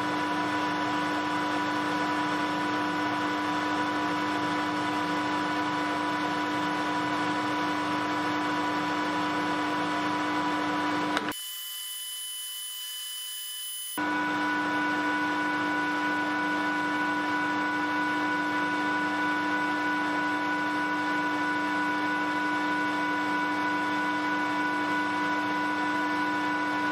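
Gosan 1740A metal lathe running at a steady speed, a constant whine made of several held tones. For a couple of seconds midway the sound thins to a quieter, higher whine, then returns unchanged.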